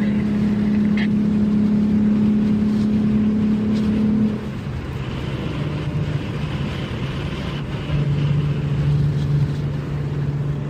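Car engine running at a steady note that drops abruptly about four seconds in and settles lower and quieter, then grows louder again near the end, over steady road noise.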